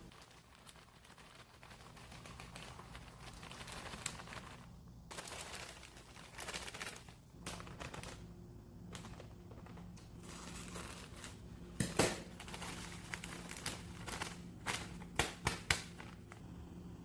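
Kitchen work noises: rustling and crinkling with scattered sharp clicks and knocks, a loud one about twelve seconds in and a quick run of them near the end, over a low steady machine hum.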